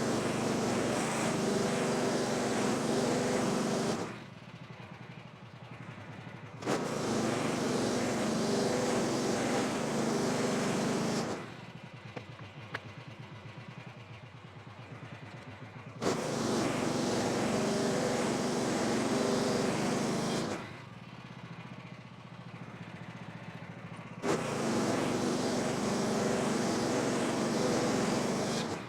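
Gas-engine bandsaw sawmill running, switching four times between a loud high-speed run of about four to five seconds and a quieter idle. Each loud stretch starts abruptly.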